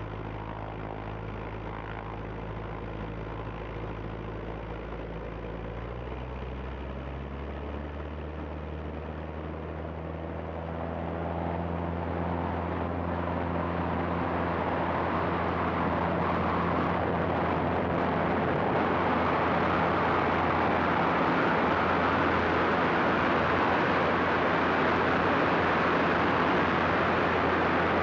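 180-hp Lycoming O-360 four-cylinder aircraft engine and propeller running during a takeoff. The engine note steps up in pitch about six seconds in as power comes up. From about eleven seconds in it grows louder, with a rising rush of air as the plane gathers speed and lifts off.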